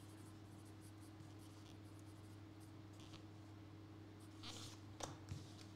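Felt-tip marker writing on a slip of paper: faint scratchy strokes, a little louder near the end.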